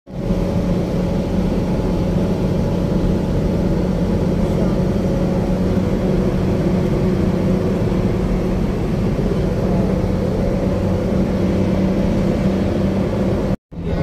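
Car driving at highway speed, heard from inside the cabin: a steady drone of engine and tyres on the road. The sound cuts out for a moment near the end.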